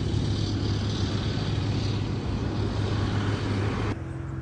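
Suzuki V-Strom 250 SX's single-cylinder engine running steadily at highway speed, with wind rush over it. About four seconds in the sound cuts off suddenly to a quieter steady hum.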